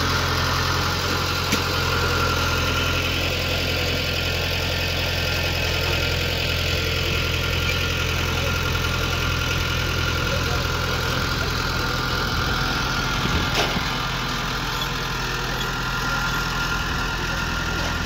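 Small crawler bulldozer's diesel engine running steadily as the dozer pushes soil with its blade. Two brief sharp ticks sound over it, one about a second and a half in and another around thirteen seconds in.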